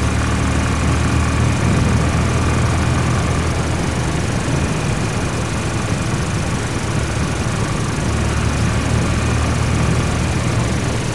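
Honda Twister 250 motorcycle's single-cylinder engine running under way, with a steady rush of wind noise on the microphone. The engine note fades somewhat in the middle and grows again near the end.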